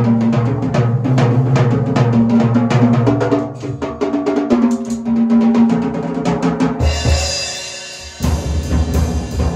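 A large drum kit played along with a recorded song: quick drum strokes over long held bass and keyboard notes. About seven seconds in the held notes give way to a hissy swell, the sound dips for a moment, and the beat comes back in.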